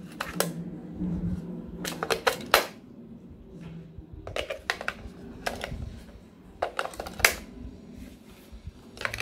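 AA batteries being pressed into the plastic battery compartment of an RC transmitter, against its metal spring contacts: clusters of sharp plastic-and-metal clicks and rattles every couple of seconds.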